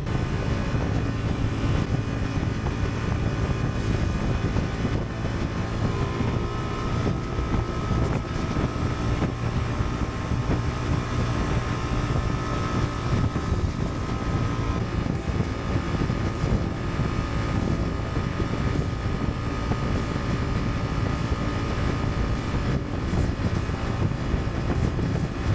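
Honda Transalp 750's parallel-twin engine running at motorway speed, with wind rushing over the microphone and road noise. A steady high whine joins for several seconds in the middle.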